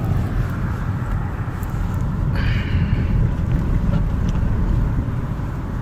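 Steady low rumble of a car driving, heard from inside the cabin, with a brief higher-pitched sound about two and a half seconds in.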